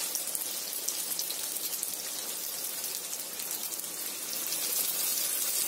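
Vegetable oil sizzling and crackling in a frying pan around freshly laid pirozhki, yeast-dough pies with potato filling. It is a steady, dense patter of small pops.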